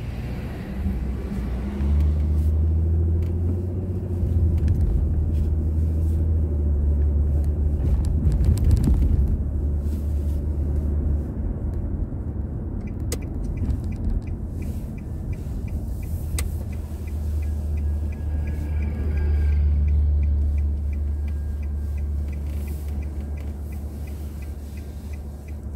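Car driving, heard through the dashcam: a low engine and road rumble that swells and eases as the car slows and pulls away. About halfway in, a steady, regular ticking of the turn signal starts and keeps going.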